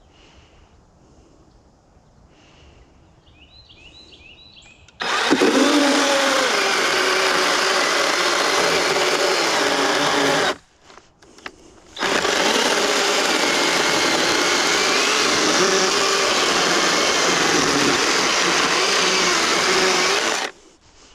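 Kobalt electric chainsaw cutting into dense, resin-soaked pine fatwood. It starts about five seconds in and runs under load with a wavering motor whine, stops for about a second and a half, then cuts again until shortly before the end.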